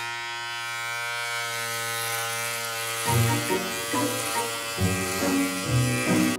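Steady buzz of an electric hair clipper, one even hum with many overtones, held against a cat's back as a fake shave. Background music comes in over the buzz about halfway through.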